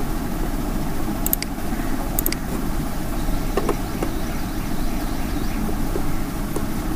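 Steady low background rumble with two light computer-mouse clicks, about one and two seconds in.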